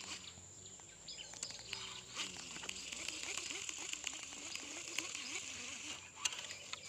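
Birds chirping and a steady high insect drone, with a few sharp clicks, the loudest about six seconds in.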